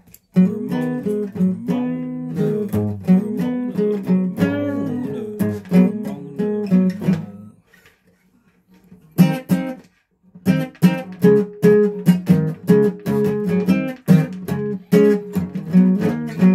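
A guitar being played: a run of picked notes and chords, a pause of about two seconds a little past the middle, then the playing starts again.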